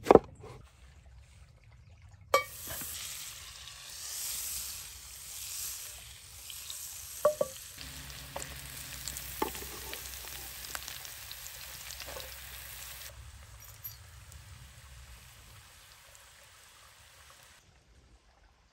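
A single knife knock on a wooden cutting board. Then diced onion and eggplant sizzle in hot oil in a cast-iron skillet, with a few knocks from stirring. The sizzle starts suddenly about two seconds in, eases off later and stops shortly before the end.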